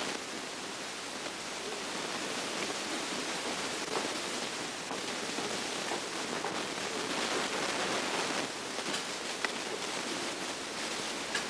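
Steady hiss of an old camcorder recording, with faint rustling and a few light knocks as children shuffle and move about.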